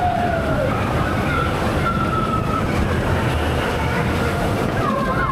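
Mine-train roller coaster running along its track: a steady, loud rumble of the cars, with a few long, high squeals drifting in pitch.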